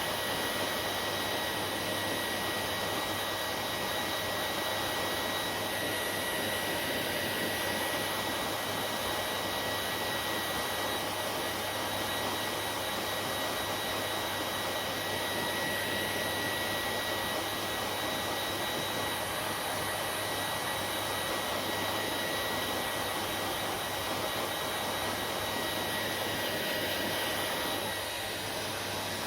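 Hair dryer running steadily: a constant rush of air with a thin, high, steady motor whine over it. The level drops slightly near the end.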